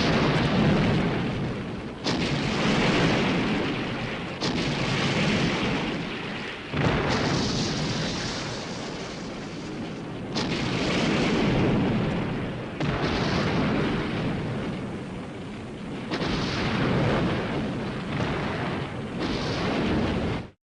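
Film sound effects of explosions: a series of about eight blasts, each starting suddenly and dying away in a rumble, roughly two to three seconds apart.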